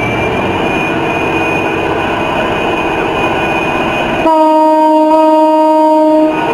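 A train running with a rumbling noise, then a loud, steady horn blast about four seconds in that lasts about two seconds.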